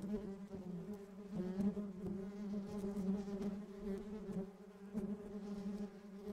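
Hum of a honeybee colony in its hives: a steady buzz whose loudness rises and falls.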